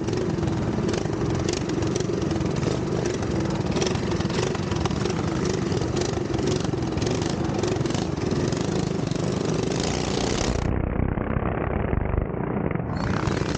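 Several small minibike engines run together, then pull away as the bikes ride off down a dirt track. The sound turns duller near the end.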